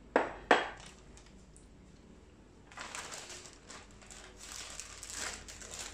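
Two sharp knocks, then a zipper-lock plastic bag crinkling and rustling as it is picked up and handled by hand.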